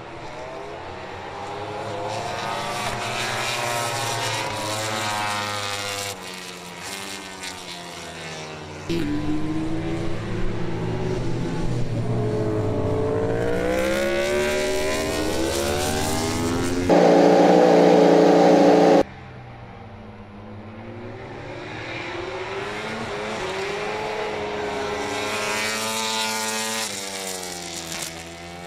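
MotoGP prototype race motorcycles running on track: high-revving engines accelerating and changing gear as bikes pass, the pitch sliding up and down, in several cut-together clips. About two-thirds of the way through there is a very loud, steady two-second full-throttle stretch that stops suddenly.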